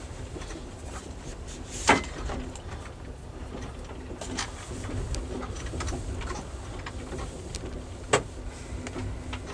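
Steady low rumble of a passenger train car riding over the track, heard from inside the coach, with light ticks and rattles throughout. There is a sharp knock about two seconds in and another near the end.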